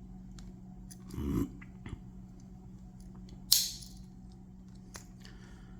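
Small clicks of a Swiss Army knife's steel tools being handled, with a soft thump just after one second. About three and a half seconds in comes one sharp snap with a brief ring, a tool clacking against its backspring.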